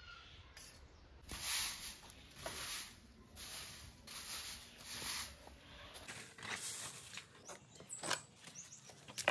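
A long-bristled grass broom sweeping a concrete floor in short swishing strokes, about one a second, followed near the end by a few light clicks and knocks.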